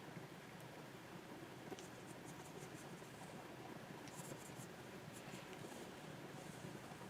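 Faint strokes and small taps of a Wacom pen nib on a Wacom 24 Pro drawing surface: soft swishes of drawing lines, broken by a few light clicks of the pen tip.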